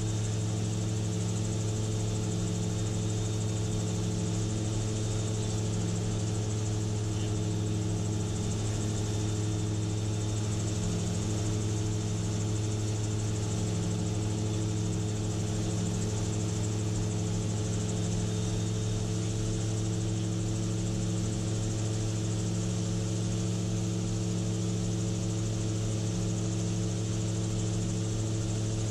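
Gyrocopter engine and propeller droning steadily in level cruise flight, heard from the cockpit, with a constant low hum and no change in pitch.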